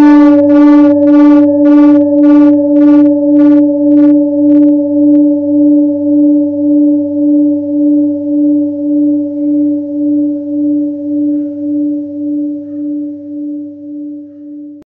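A hand-made seven-metal Himalayan singing bowl, the last of a set of seven (tuned to sol), ringing out after being played, with a steady wavering beat about twice a second. A bright upper shimmer pulses along and dies away within the first few seconds, while the main tone slowly fades until it cuts off abruptly at the end.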